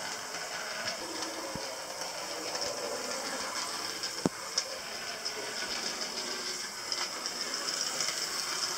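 Hornby OO-gauge model train running on the layout: a steady electric motor whirr and hiss, with the wheels rattling and clicking over the track, and a sharp click about four seconds in.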